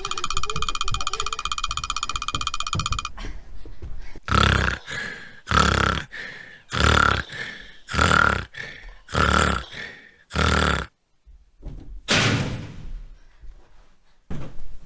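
A man snoring loudly, six big rasping snores a little more than a second apart, each with a weaker breath between, then a pause and one more snore near the end. Before that, a steady tone stops about three seconds in.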